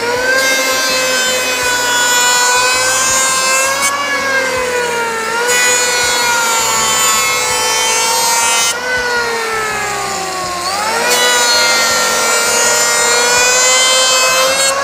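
Electric hand planer with freshly fitted blades running and shaving a wooden board: a loud high motor whine over the hiss of cutting. The whine sags in pitch as the blades bite into the wood and rises again twice, about five and a half and ten and a half seconds in.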